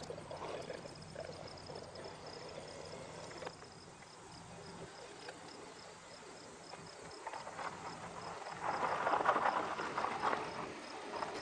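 Outdoor ambience of an insect chirping steadily at about three chirps a second, high-pitched and faint. A louder rushing noise swells about eight seconds in.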